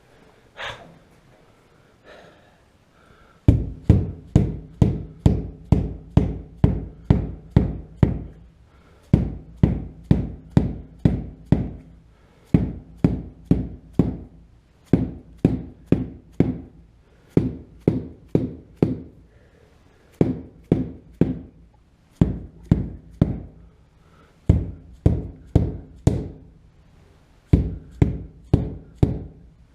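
Rapid knocks, about three a second in runs of five to eight with short pauses between. This is the Jaguar MKII's rear window being knocked down into its rubber seal to seat it during installation.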